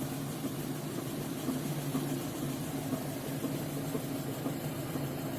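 Lada Kalina engine running steadily in first gear, driving a jacked-up front wheel at full right steering lock against light braking, with a metallic knock from the drive that the owner suspects is a worn right outer CV joint.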